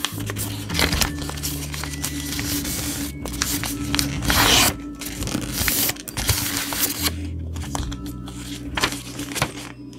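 Background music with a low bass line, over paper rustling and creasing as a sheet is folded by hand. The loudest crackle of the paper comes about four seconds in.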